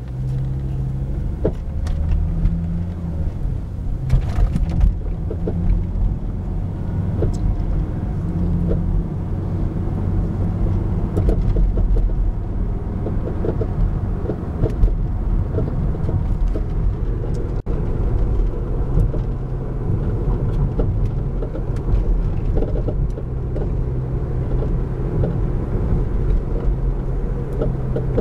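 Volvo S60 being driven: steady road and engine rumble with a knocking that comes and goes at irregular moments.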